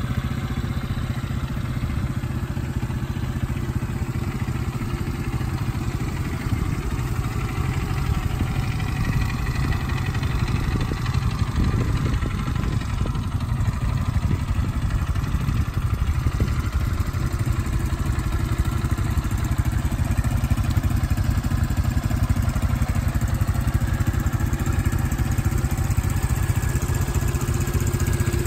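Two small ATV engines, a KXD 200 cc and a 125 cc quad, idling steadily side by side.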